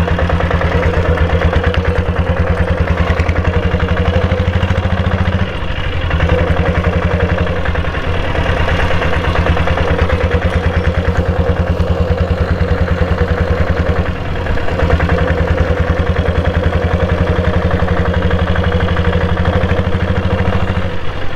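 Single-cylinder diesel engine of a Royal Enfield diesel Bullet running steadily under way, its pulses evenly spaced, with two short dips in power about five and fourteen seconds in.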